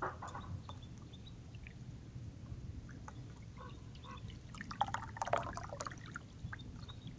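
Dark-eyed junco bathing in a shallow terracotta bird bath, splashing the water in quick bursts: a short burst right at the start and a longer flurry about five seconds in.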